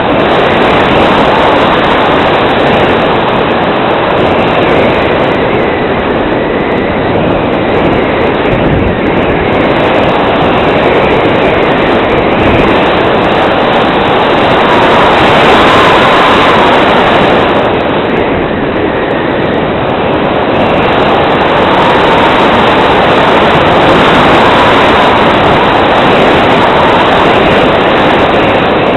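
Steady rush of airflow over the onboard camera of a Valenta Dragon RC model glider in flight. It swells about halfway through as the model banks steeply, and again near the end.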